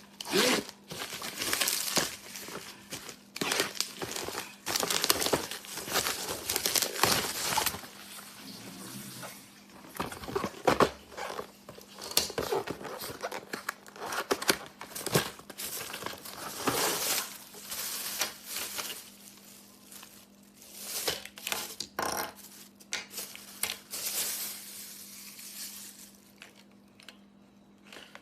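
Crinkling and rustling of packaging being handled, with light clatter of hard parts, in irregular bursts that die away near the end.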